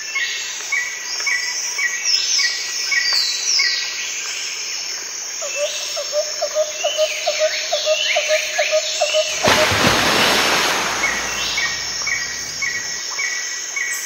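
Several birds calling together: rows of short repeated whistled notes, falling whistles higher up, and a lower note repeated about twice a second in the middle. About halfway through comes a louder burst of rushing noise lasting about a second and a half.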